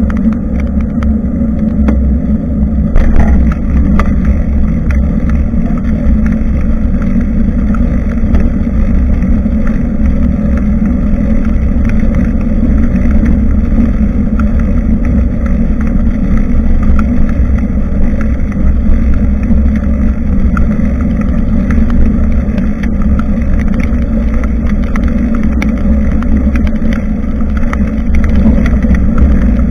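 Steady low rumble of wind buffeting and road vibration on a bicycle-mounted action camera's microphone while riding. There is a brief knock about three seconds in.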